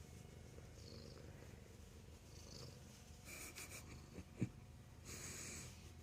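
Domestic cat purring steadily and close up. A sharp click sounds about four seconds in, and there is brief rustling twice.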